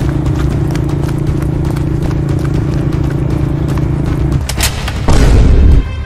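Galloping horse hoofbeats dubbed in as a sound effect over a steady low drone. About four and a half seconds in they stop for a short swish, followed by a loud, deep boom lasting most of a second.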